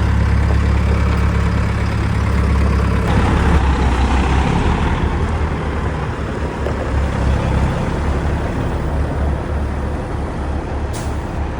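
Large diesel engine of heavy harvest equipment running steadily close by, a low drone that gets somewhat louder and rougher about three seconds in.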